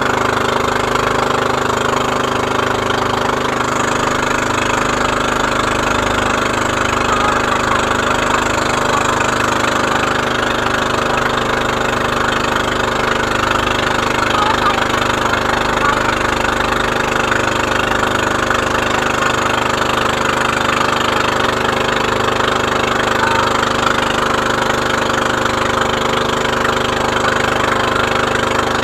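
Motor of a Philippine outrigger boat (bangka) running steadily under way, at an even, unchanging pitch.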